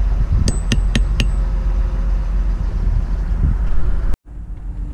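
Four light hammer taps on the metal bolts of a sailboat's self-tailing winch, quick and clinking with a short ring, about half a second to a second in, striking the bolts to shock them loose before undoing them. A steady low rumble runs underneath and cuts off abruptly about four seconds in.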